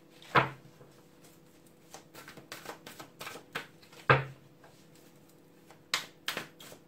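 Deck of tarot cards shuffled by hand: a run of quick, sharp card snaps, two of them much louder, about half a second in and about four seconds in.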